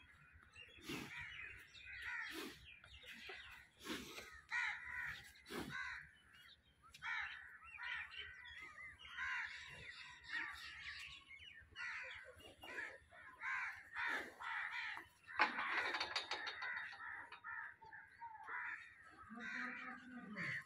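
Crows cawing over and over, several birds calling at once without a break.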